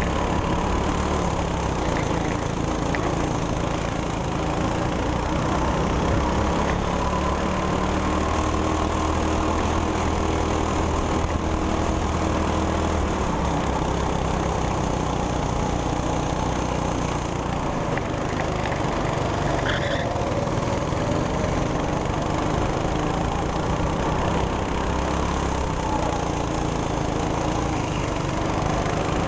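200cc go-kart engine running continuously under throttle, heard from the driver's seat, its pitch rising and falling through the corners over a steady rush of wind and road noise.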